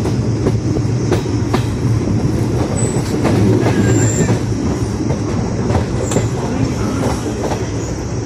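Indian Railways passenger coach running on a curve, heard from its open doorway: a steady rumble of wheels on rail, with irregular clicks as the wheels cross rail joints. Two brief high squeals come about three and four seconds in.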